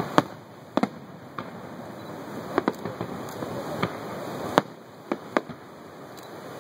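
Aerial fireworks shells bursting, about ten sharp bangs at uneven intervals, some in quick pairs. A steady rushing noise runs under them and drops away about four and a half seconds in.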